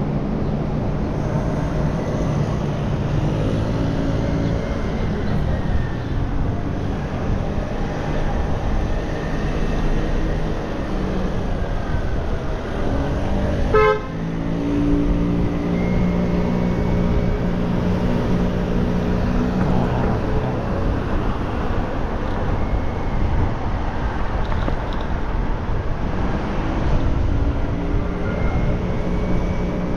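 City street traffic heard from a moving bicycle: car and motorbike engines hum steadily over road noise, and a car horn toots. There is one brief sharp sound about halfway through.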